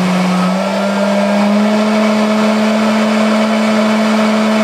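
Internal motor of a Xiaomi Townew T1C self-sealing smart trash can running its power-on cycle, a steady hum whose pitch steps up slightly about half a second in. It runs on the newly fitted 12 V SLA battery alone, a sign that the can now works without the charger.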